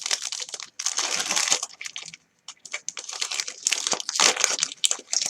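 Foil wrapper of a hockey card pack crinkling as it is handled and torn open, in two louder bouts about a second in and about four seconds in.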